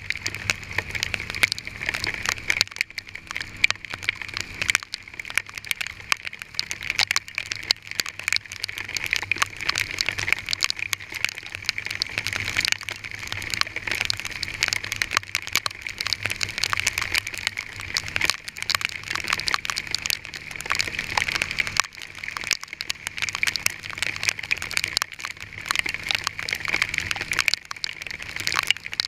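Hailstones pelting a vehicle in a dense, unbroken patter of sharp ticks and cracks that keeps up steadily throughout.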